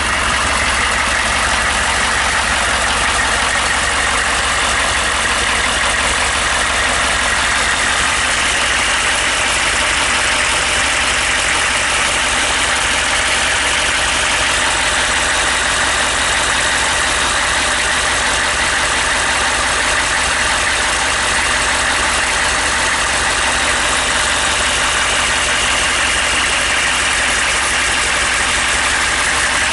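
GMC Safari's 6.5-litre turbo-diesel V8 idling steadily.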